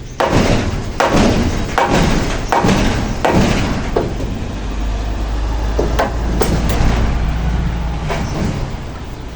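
Hammer blows during roofing work: a run of about six sharp knocks, one roughly every three-quarters of a second, each ringing briefly. After that a few lighter knocks come over a low rumble.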